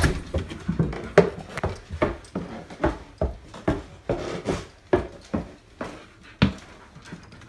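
Footsteps on wood, about two or three steps a second at a steady walking pace, stopping about six and a half seconds in.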